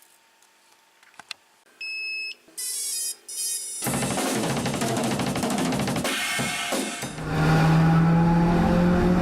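Near silence, then a few short electronic tones, then loud music with drums starting about four seconds in.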